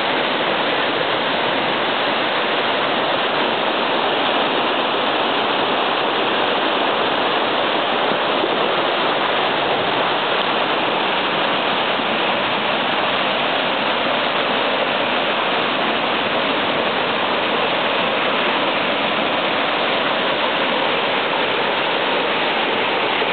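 Rain-swollen creek in flood, its churning floodwater rushing with a steady loud roar.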